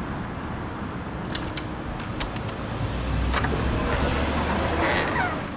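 Street traffic noise with a car passing, its low rumble building through the middle and fading near the end. There are a few sharp metallic clicks in the first half and a brief falling squeak near the end.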